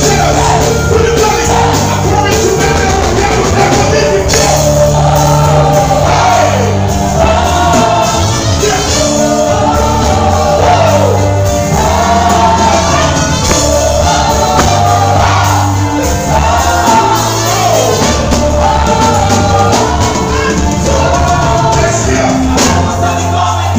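Live gospel music played loud through a sound system: a woman singing lead into a microphone, with a choir and a steady bass line behind her.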